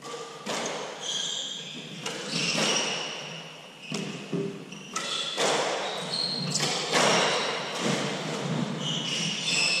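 Hardball doubles squash rally: sharp, irregular cracks of the ball off racquets and court walls, echoing in the court, with short high squeaks of court shoes on the floor.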